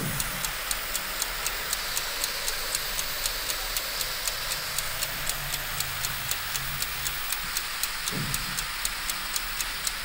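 Ticking clock sound effect, about three sharp ticks a second, over a faint steady hiss.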